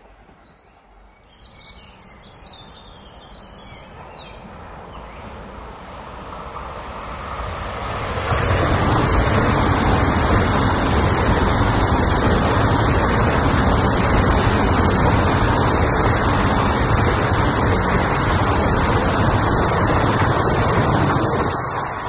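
ICE 4 high-speed electric multiple unit approaching, its rail noise growing louder over several seconds. It then passes close by for about thirteen seconds as a loud, steady rush of wheels on rails, which falls away near the end as the last car clears.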